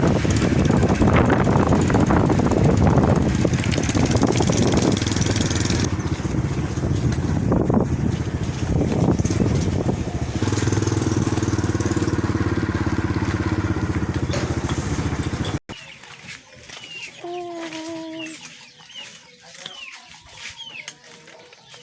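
Wind buffeting the microphone over a steady motor hum, which cuts off suddenly about fifteen seconds in. A quieter stretch follows, in which a chicken gives a few drawn-out calls and small birds chirp.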